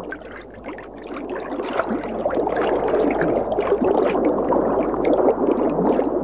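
River water rushing and splashing over shallows, a steady watery noise with many small splashes, growing louder about a second in.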